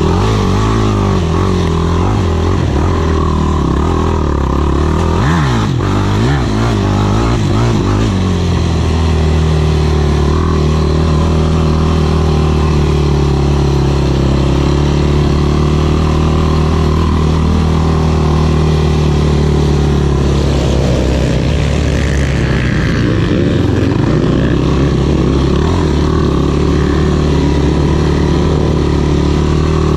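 Single-cylinder sport quad (ATV) engine running hard, revving up and down several times in quick succession early on, then holding a steady pitch, with a short drop in revs about two-thirds of the way through.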